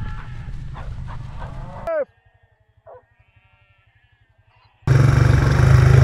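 A flock of sheep bleating in quick succession over a low wind rumble, cut off abruptly about two seconds in. Near the end a quad bike's engine comes in suddenly, loud and steady.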